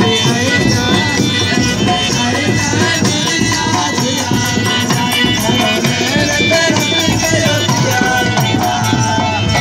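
Traditional folk music with steady drumming and a melody line running over it.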